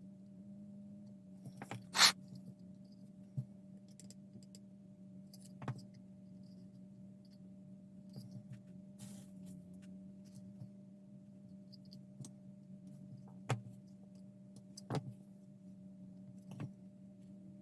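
Scattered small clicks and taps from handling a scale model while threading fiber optic strands into it, the sharpest about two seconds in. A steady low electrical hum runs underneath.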